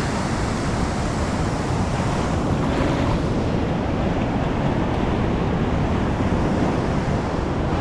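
Heavy surf breaking and washing on an ocean beach in a steady roar, with wind buffeting the microphone.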